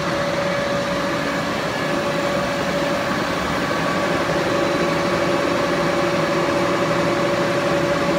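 76-inch Bullard vertical turret lathe running with its table turning: a steady mechanical hum with a constant whine through it.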